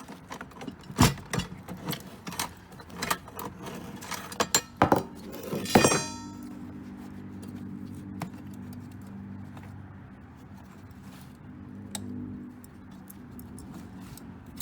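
Coins and metal parts inside an opened payphone clinking and rattling as they are handled, many sharp clinks for about six seconds ending in one loud ringing metallic clang. After that it is quieter: a low steady hum with an occasional click.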